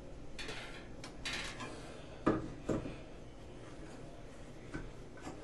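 A screwdriver and a metal horseshoe-shaped retainer pin working against a shower valve cartridge: two short scrapes, then two sharp metallic clicks a little over two seconds in, with a few lighter ticks after.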